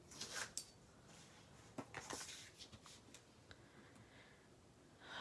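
Craft snips cutting the corners off paper: a few faint snips and paper rustles.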